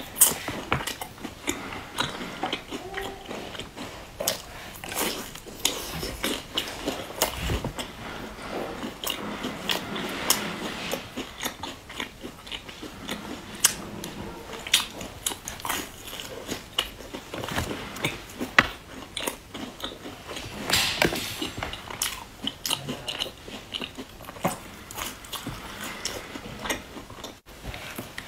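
Close-miked biting and chewing of a thin, large round biscuit, with irregular crunchy clicks and mouth sounds throughout.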